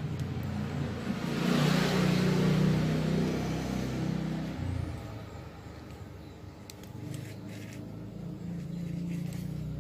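A motor vehicle passing by, its noise swelling about a second in and fading away after a few seconds, with a low engine hum that rises again faintly near the end.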